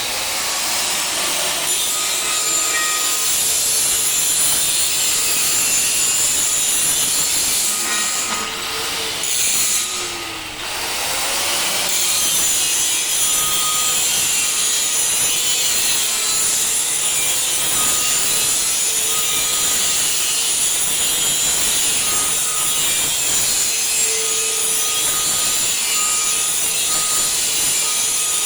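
Angle grinder grinding steel, a steady, harsh high-pitched noise that dips briefly twice near the middle.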